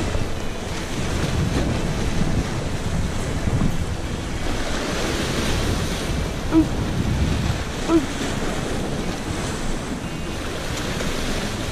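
Sea waves surging and breaking against rocks, with wind buffeting the microphone in gusts. Two short squeaks stand out a little past halfway, about a second and a half apart.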